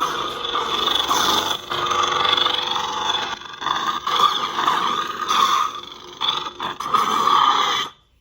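Highborn Saber lightsaber with an Asteria Heart soundboard humming through its built-in speaker, rising and falling in loudness, then cutting off suddenly near the end.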